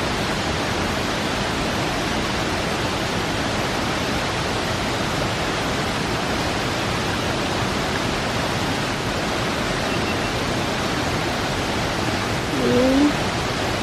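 Steady rush of a waterfall, an even unbroken hiss of falling water.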